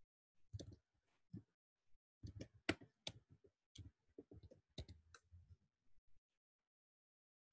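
Computer keyboard typing: an irregular run of short key clicks that stops about six seconds in.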